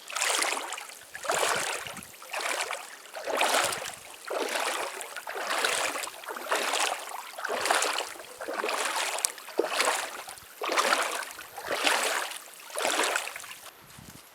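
Legs wading through a river, splashing in a steady rhythm of about one stride a second.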